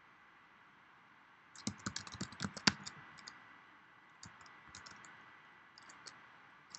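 Typing on a computer keyboard: a quick run of keystrokes starting about a second and a half in, then a few scattered keypresses.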